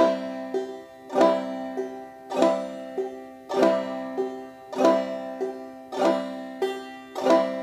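Five-string banjo played clawhammer style: a slow, even downward strum across the strings about every 1.2 seconds. Each strum is followed by a single higher note, the thumb on the fifth string, giving the basic strum-thumb rhythm.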